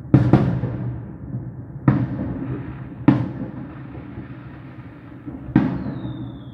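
Fireworks bursting overhead: five booms, the first two in quick succession, each followed by a long echoing tail. Near the end a high whistle from a firework starts and slowly falls in pitch.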